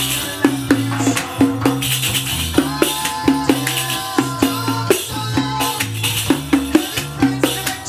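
Riq played by hand in a steady groove: deep ringing strokes on the drumhead mixed with bright jingle taps and shakes, over a pop song with a held bass line.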